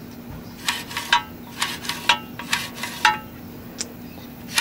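Briggs & Stratton lawnmower recoil starter, freshly rewound, being tested by pulling the cord and letting it retract: a string of about ten sharp metallic clicks and clinks at an uneven pace. The cord retracts fairly strong, a sign the rewind spring tension is restored.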